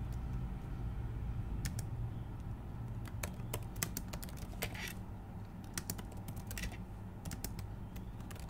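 Typing on a computer keyboard: irregular key clicks, with short pauses between bursts of keystrokes, over a steady low hum.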